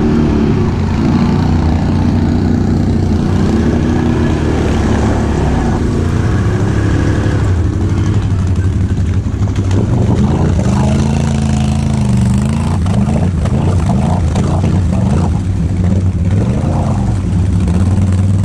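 ATV engines running: a steady idle close by, with an engine revving up and down repeatedly from about ten seconds in as the other four-wheeler works through deep, muddy water.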